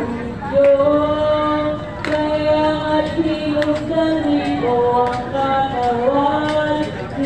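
Unaccompanied singing or chanting: slow, long held notes that step up and down in pitch. Several sharp cracks cut through it at irregular moments.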